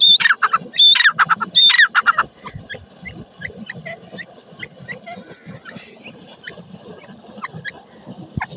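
Grey francolin (teetar) calling: three loud, harsh calls in the first two seconds, each a high note sliding steeply down. After that only faint short chirps.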